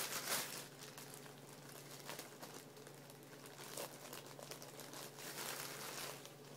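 Thin plastic bread bag crinkling and rustling as hands open it and pull slices out, in irregular handfuls, loudest at the start and again about five seconds in.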